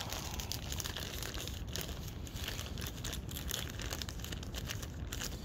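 Clear plastic bag crinkling as it is handled by hand: a continuous run of small crackles and rustles.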